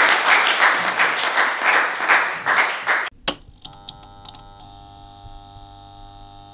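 Audience applauding, thinning out and cut off abruptly about three seconds in. After that comes a faint steady hum of several held tones with a few soft clicks.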